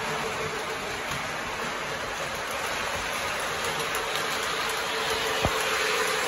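Lionel Legacy Southern 4501 Mikado O gauge model steam locomotive running toward the listener, with a steady hiss and a steady hum that grow louder toward the end, and one sharp click about five and a half seconds in.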